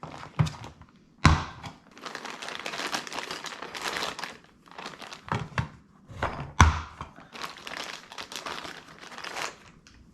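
Plastic packaging crinkling and rustling as parts are unpacked and handled, broken by two sharp thunks, one about a second in and the loudest a little past the middle.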